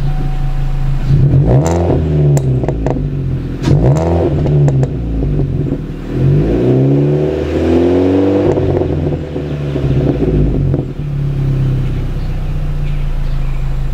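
Chevrolet Cruze with a Magnaflow cat-back exhaust, heard at the tailpipe: idling steadily and revved three times, two quick blips in the first few seconds and then a longer rev about halfway through, each dropping back to idle.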